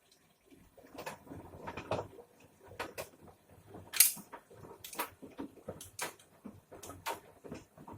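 Washing machine clattering and knocking irregularly, with sharp clicks about once a second; the loudest is a sharp click about four seconds in.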